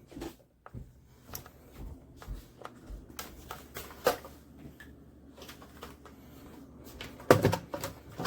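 Handling noise as a hard drive dock and its power cord are moved and fiddled with: scattered light clicks and knocks, with a louder clatter of knocks near the end.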